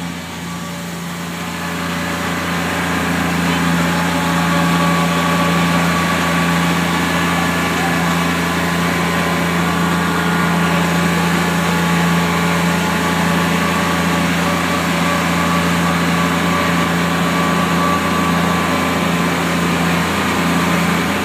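Small amusement-park ride train's engine running with a steady hum, louder while the train is inside a corrugated-metal tunnel from about two seconds in until near the end.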